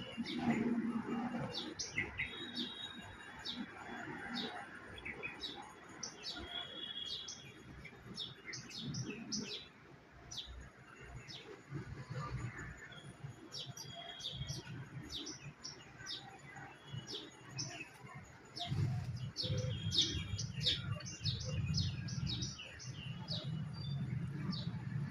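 Small garden birds chirping, a rapid scatter of short high calls throughout. About three-quarters of the way in, low pigeon cooing becomes prominent underneath.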